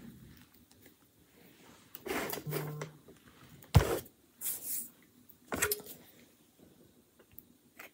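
Handling knocks and clunks of a cordless hot glue gun being picked up and set down on a craft cutting mat: a cluster of bumps about two seconds in, a sharp knock near four seconds, and another knock a little later.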